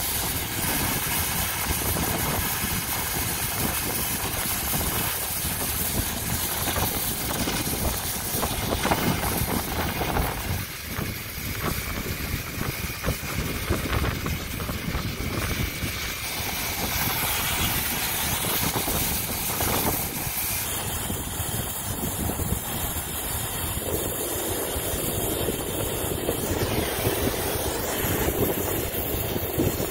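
Oxy-fuel brazing torch flame hissing steadily as copper refrigerant line joints on a walk-in cooler compressor are brazed.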